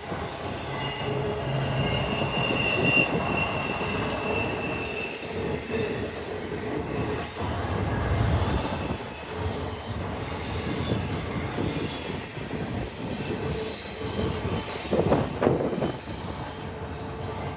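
Norfolk Southern intermodal freight train rolling slowly past, with a steady rumble from the cars and wheel flanges squealing in thin high tones that come and go.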